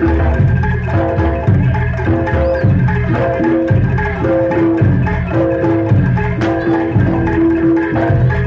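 Jaranan ensemble music: tuned gong-chime percussion playing a short repeating figure of pitched notes over a steady drum beat.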